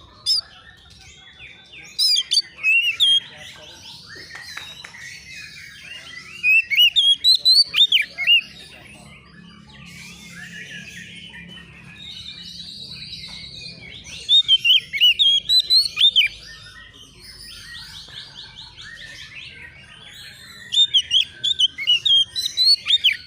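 Oriental magpie-robin (kacer) singing: loud bursts of quick, varied whistled notes come every few seconds, with softer chattering and whistling between the bursts.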